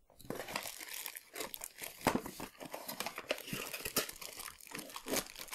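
Cardboard box and its packing being handled and rummaged through: irregular rustling and crinkling with scattered small knocks.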